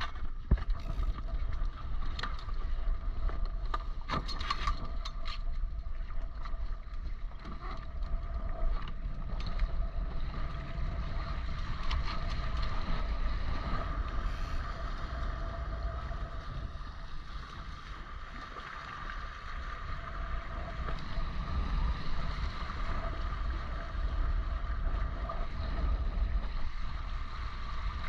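Maricat 4.3 small sailing catamaran underway, its hulls rushing through the water while wind buffets the microphone, with a steady hum over it. A few sharp clicks come about two to five seconds in.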